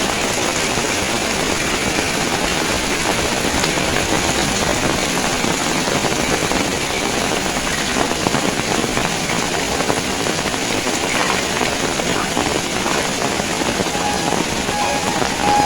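Heavy rain falling steadily, a dense even hiss with no let-up. Near the end, a string of short high beeps sounds through the rain.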